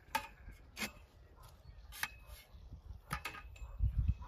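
A metal digging tool knocking against soil and stones: five sharp clinks at irregular intervals, two in quick succession a little after three seconds. A low rumble near the end is the loudest part.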